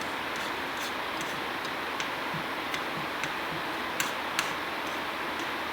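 Fried rice with vegetables cooking in a pan: a steady sizzle with scattered sharp clicks and ticks at irregular intervals.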